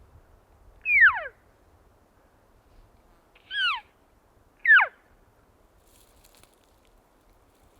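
Cow elk calls: three short mews, each sliding steeply down in pitch, about a second in, at three and a half seconds and near five seconds.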